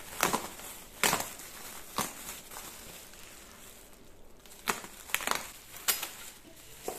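Bubble wrap and a plastic mailer bag crinkling and rustling as a parcel is torn open by hand, with a sharp crackle every second or so.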